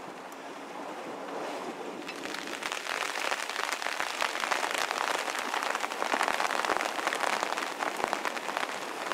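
Rain falling on a sailboat's canvas cockpit cover, a dense hiss of many small drop ticks that grows heavier about two seconds in.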